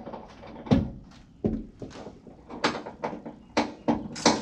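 A series of knocks and clunks, about six in four seconds, from the metal frame of a sliding RV cargo tray being shifted and worked into line. The heaviest is a thud about a second in.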